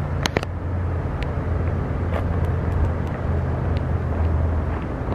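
Chevrolet Silverado 3500HD pickup engine idling steadily, a low even hum, with a few faint clicks over it.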